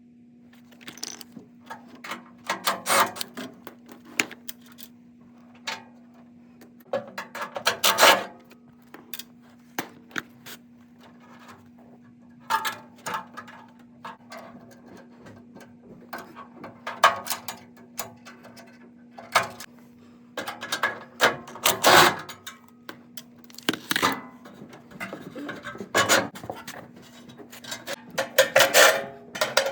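Metal clinks, rattles and scrapes of tools and sheet-metal parts being handled at irregular intervals, over a steady hum.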